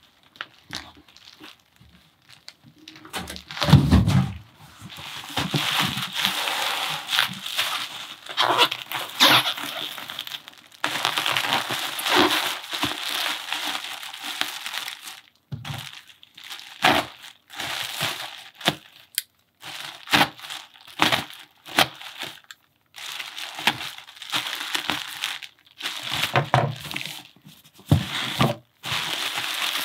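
Bubble wrap crinkling and rustling as it is handled and pulled from around cardboard boxes, in irregular spells with short pauses. There is a dull knock about four seconds in.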